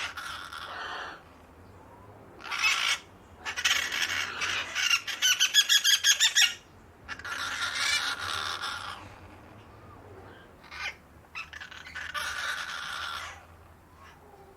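Ducks quacking in bouts with pauses between them, including a fast run of quacks, several a second, in the middle and a few short single quacks later on.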